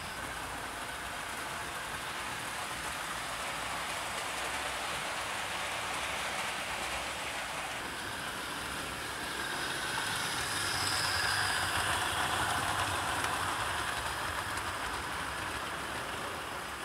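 OO gauge model trains running on the track, a steady rolling rush of wheels on rail that swells as a train passes close, loudest a little past the middle.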